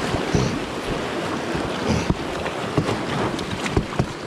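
River riffle rushing and splashing around the pontoons of a small pontoon boat, with wind on the microphone and scattered short knocks and slaps.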